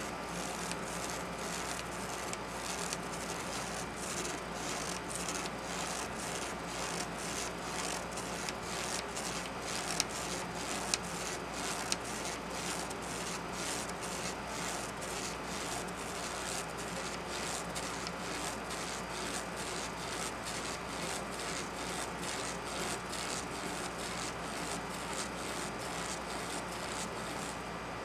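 Pen scratching on paper as a plastic spirograph gear wheel is rolled around inside its toothed ring: a steady rhythmic rubbing, about three strokes a second, with three sharper clicks around the middle.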